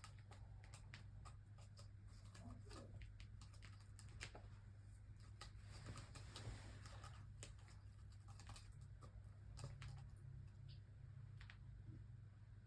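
Faint, irregular light clicks and taps, scattered unevenly, over a steady low hum.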